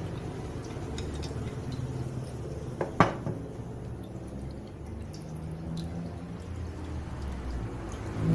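Liquid being poured from one container into another, with light clinks of glassware and one sharp clink about three seconds in.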